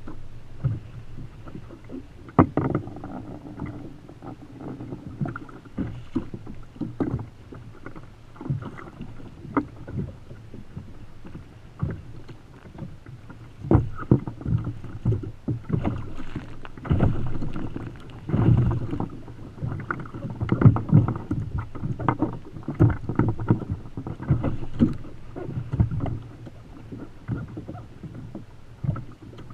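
Choppy sea slapping against the hull of a Feelfree Lure 13.5 fishing kayak, with irregular knocks and clatter as fish and tackle are handled aboard, over a low rumble. The knocks come thicker and louder in the second half.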